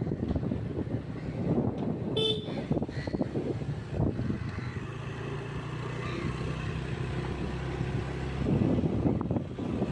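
A vehicle's engine running steadily while riding along a road, with wind buffeting the microphone. A single short horn toot sounds about two seconds in.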